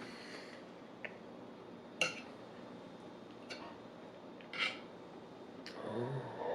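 Eating utensil clinking against a plate about five times, sharp separate clinks a second or so apart, the loudest about two seconds in. A short low voice-like sound comes near the end.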